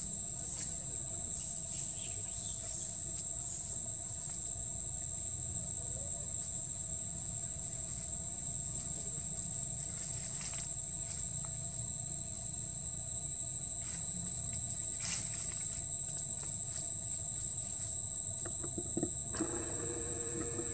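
Insects droning steadily in the trees: one unbroken high-pitched tone with a fainter one below it. A short lower sound comes in near the end.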